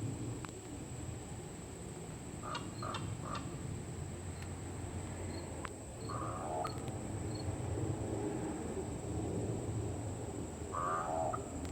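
A crow making odd calls: a quick run of three short calls about two and a half seconds in, another call about six seconds in, and one more near the end. A steady high-pitched whine runs underneath.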